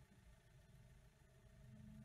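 Near silence, with only a faint, steady low rumble from a car moving along the road.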